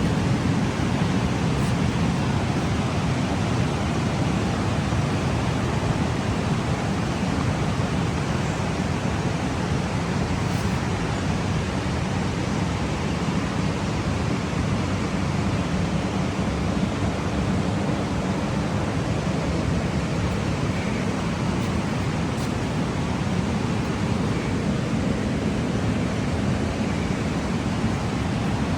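Steady rushing of flowing water, an even noise with no breaks or changes.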